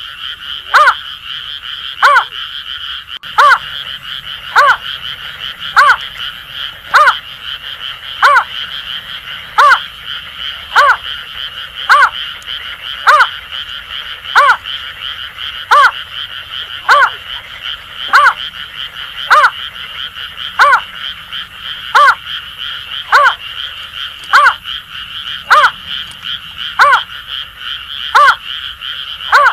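Greater painted-snipe and Asian grass frogs calling together: a loud call note repeats evenly about once a second over a continuous croaking frog chorus.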